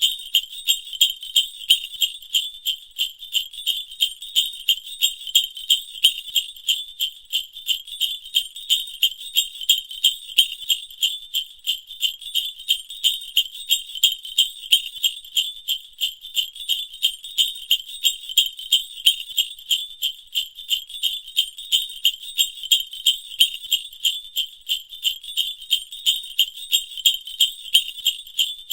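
Sleigh bells sound effect jingling in a steady, even rhythm of shakes that repeats unchanged throughout, a thin, high jingle with no low end.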